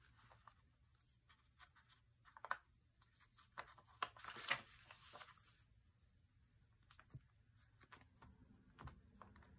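Faint paper and fabric handling: fingers pressing a glued fabric tab onto the edge of a journal page and smoothing the paper pages flat, with soft rustles and small clicks, busiest about four to five seconds in.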